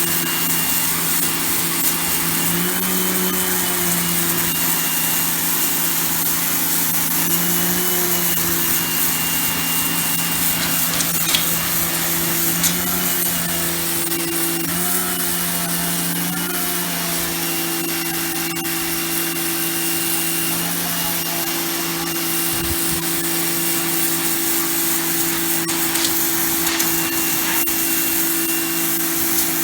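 Titan TTB66PRW electric pressure washer running steadily, its motor and pump making a whine over the hiss of the spray. The pitch shifts slightly now and then.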